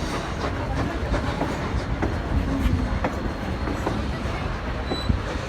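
Train running along the track: a steady rumble with irregular sharp clicks of the wheels over the rails.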